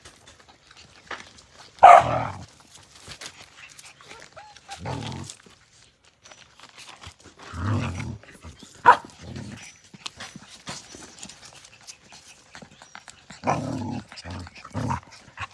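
Australian Cattle Dog puppies making short bursts of noise as they play, several times over, the loudest about two seconds in and a sharp, brief one about nine seconds in.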